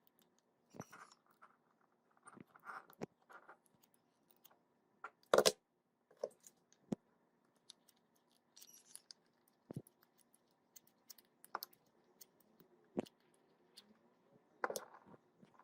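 Scattered light clicks, knocks and brief scrapes of small hard objects being handled, with one louder knock about five seconds in, over a faint steady hum.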